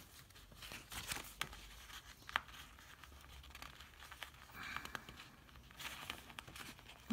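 Faint paper rustling and crinkling as stickers are handled and pressed down onto a spiral-bound planner page, with small scattered taps and clicks.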